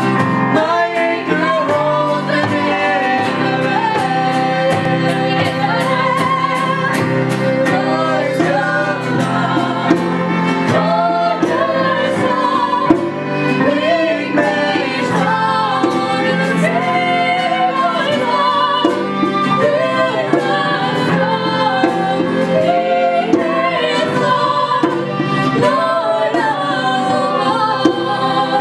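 Live worship song played by a small band: several voices, mostly women's, sing a melody together over keyboard chords, acoustic guitar, violin and a djembe beaten by hand.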